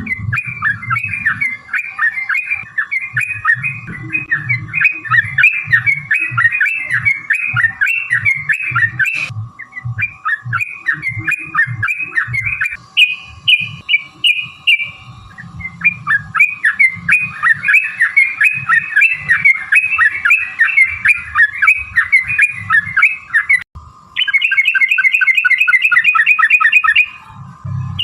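Yellow-vented bulbul (trucukan) singing loud, fast chattering phrases in long runs, with two short breaks. Near the end comes a rapid, evenly repeated trill, the long 'ropel' run that keepers play to caged birds as a lure to make them answer.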